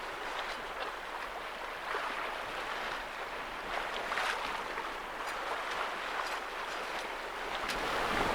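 Water rushing and splashing along the hull of a small sailing yacht running downwind under sail, with some wind noise.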